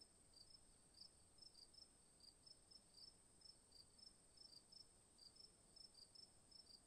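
Near silence: only faint high chirping, about three chirps a second alternating between two pitches, over a steady high-pitched whine.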